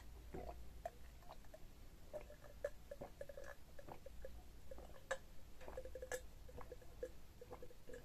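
A person gulping down a drink from a glass, close to the microphone: a steady run of soft swallows with small wet mouth clicks.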